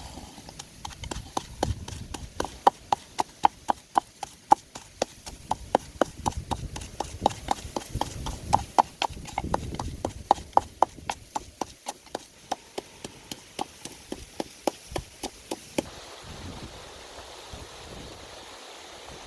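Steady chopping on a wooden board, about three to four sharp strokes a second, that stops about three seconds before the end.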